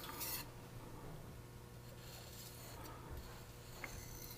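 Faint, light scraping of a petty knife's edge drawn over a Japanese natural whetstone in trailing strokes to take off the burr, with one brief, slightly louder scrape just at the start.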